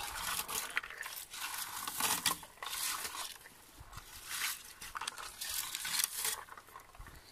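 Red plastic berry picker raked through low bilberry bushes: a series of rustling, crackling swishes of leaves and twigs, one stroke after another.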